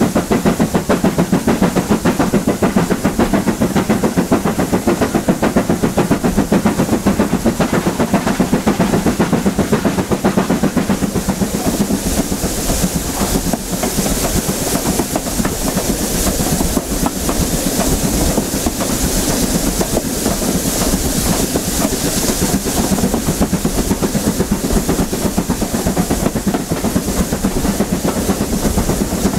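BR Standard Class 7 'Britannia' two-cylinder Pacific steam locomotive working a train, heard from behind the engine: rapid, steady exhaust beats with rail noise. A hiss grows stronger from about twelve seconds in.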